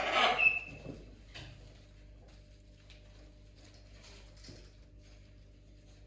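Cockatoo shifting and handling a toy on a leather sofa: a short loud rustle with a brief squeak right at the start, then faint scratches and beak clicks.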